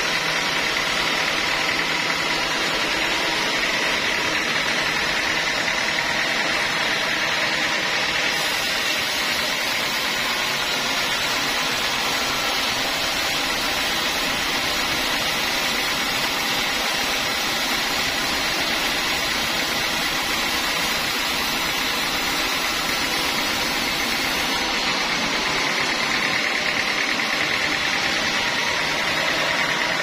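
Band saw mill cutting a teak log into boards, the blade and the mill's motor running steadily and loudly. A brighter hiss joins from about 8 to 25 seconds in.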